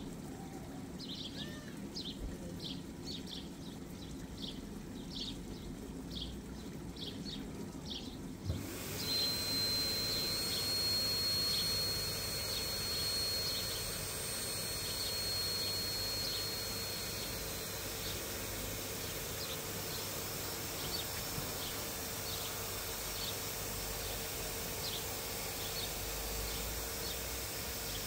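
Lay-Z-Spa pump unit switched on about eight seconds in, then running with a steady hum and hiss and a high whine for several seconds. Before it starts, faint regular chirping.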